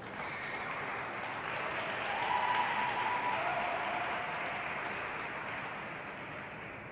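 Audience applauding, swelling to a peak about two and a half seconds in and then slowly fading.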